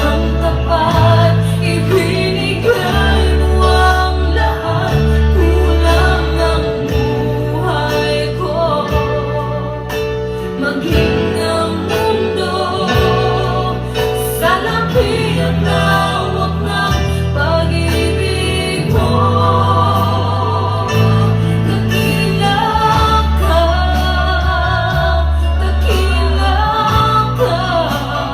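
Gospel worship song: singing over held bass and instrumental accompaniment.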